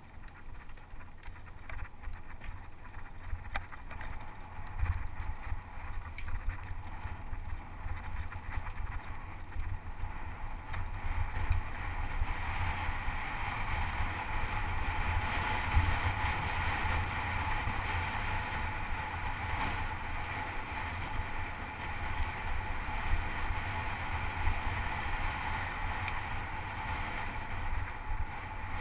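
Mountain bike rolling along a rough dirt and gravel track, heard through an action camera's microphone: a steady low rumble and wind buffeting with small knocks from bumps in the ground, and a hiss that grows louder about twelve seconds in as the ride speeds up.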